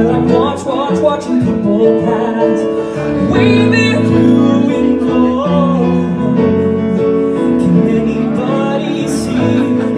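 A grand piano playing sustained chords as live accompaniment, with a man singing over it.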